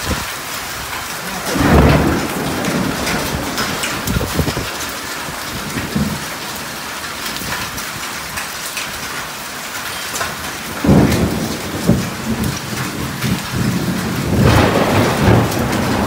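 Heavy rain mixed with hail falling steadily on lawn and roofs in a thunderstorm. Thunder rumbles about two seconds in, again at about eleven and twelve seconds, and near the end.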